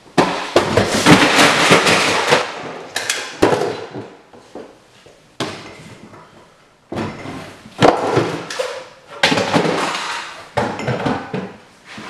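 A person tripping and falling to the floor, with a loud crash as a box and plastic cassette tapes fall and spill for a couple of seconds. Shorter bursts of clattering follow every second or two as things slide and fall.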